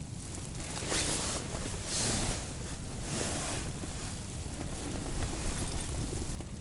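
Strong blizzard wind gusting against a fishing tent: a steady rushing hiss that swells in several gusts in the first few seconds, then settles.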